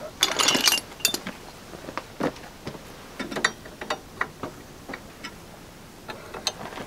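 Hand tools and metal parts clicking and clinking while work is done on a Land Rover's bulkhead fittings: irregular sharp ticks, with a louder rattling clatter in the first second.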